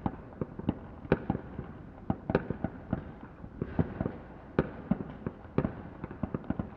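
Fireworks going off, with a rapid, irregular string of bangs and cracks, several a second, some much louder than others.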